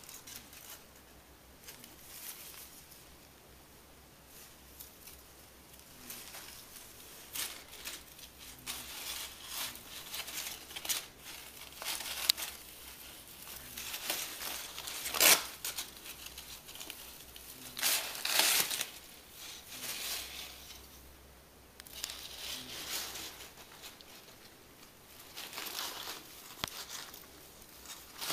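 Crumpled paper tissue crinkling and rustling in irregular bursts as a Holland Lop rabbit plays with it. The bursts are faint for the first few seconds and loudest just past the middle.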